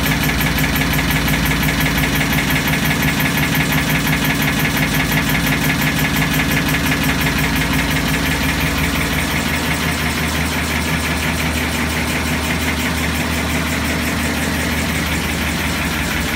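Sisma laser machine's cabinet unit running: a loud, steady mechanical hum with a fast, even pulsing.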